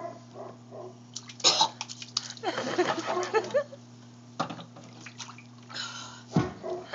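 Water splashing and sloshing in a sump pit in irregular bursts as the sump pump is handled, over a steady low hum.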